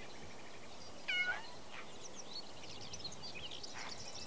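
A kitten meows once, briefly, about a second in. Small birds chirp faintly in the background.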